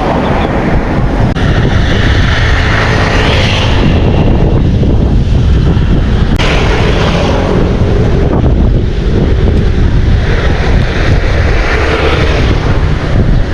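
Wind buffeting the microphone: a loud, steady rumble with hissing swells every few seconds.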